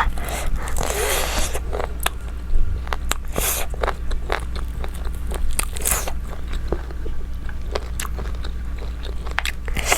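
Close-miked eating: wet chewing and biting clicks, with a few short airy slurps or breaths in between.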